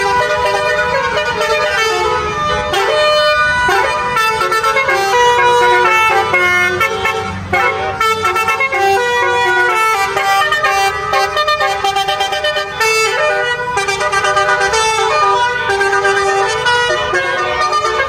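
Bus 'basuri' telolet horn, a set of air horns playing a long tune note after note without a break.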